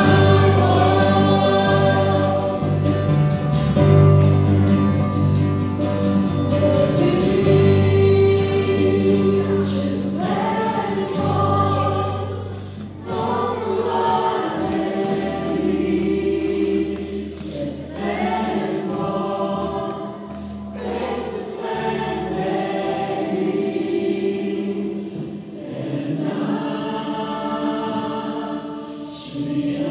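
Church worship band performing a song: several men and women singing together over acoustic guitar, bass guitar and keyboard. About halfway through the fuller backing thins out, leaving the voices over a lighter accompaniment.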